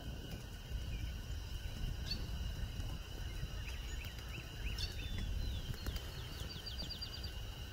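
Songbirds chirping over a steady low rumble, with a quick run of about eight short high notes near the end.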